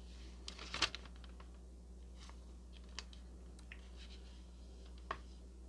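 A glass jar set down on a table, a short cluster of clicks about a second in, then a few faint, scattered ticks and taps of handling, over a low steady hum.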